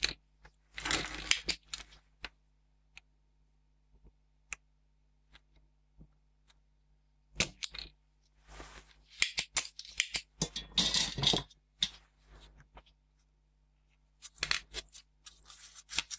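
Desoldering on a circuit board: a sharp snap from a spring-loaded solder sucker being fired, then scattered clicks and bursts of clattering as tools and the board are handled on the bench.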